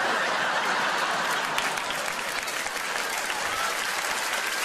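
Large theatre audience applauding: a dense, steady clatter of many hands clapping that eases slightly toward the end.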